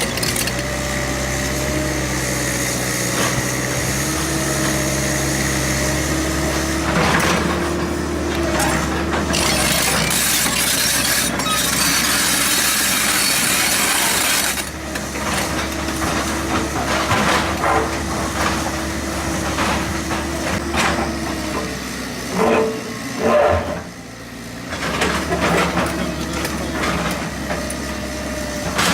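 A heavy diesel construction machine's engine running, its pitch shifting as it works. There is a scraping, rattling noise and several sharp knocks, loudest a little over three-quarters of the way through.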